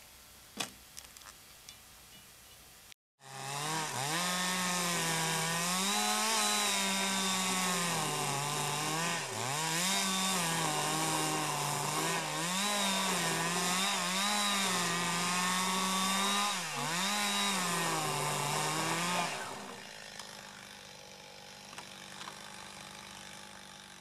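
A few light knocks, then a two-stroke chainsaw starts about three seconds in and runs at high revs for some sixteen seconds, cutting a notch into a log. Its pitch dips and recovers each time the chain bites into the wood. Near the end it falls much quieter.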